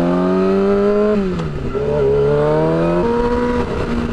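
Yamaha R6 inline-four sportbike engine with a short aftermarket exhaust, accelerating with its pitch rising. The pitch drops at an upshift about a second in, climbs again, then falls at a second upshift about three seconds in and settles to a steady cruise.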